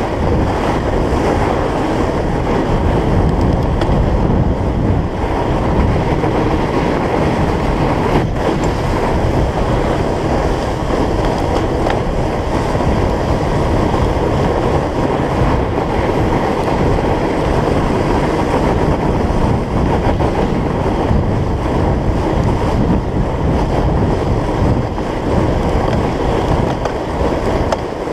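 Steady wind rumble on the camera microphone mixed with the rolling noise of a fat bike's wide tyres on a packed-snow trail.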